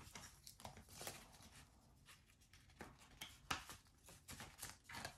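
Faint rustling and light clicks of hands tucking Australian polymer banknotes into a clear plastic pocket of a ring binder.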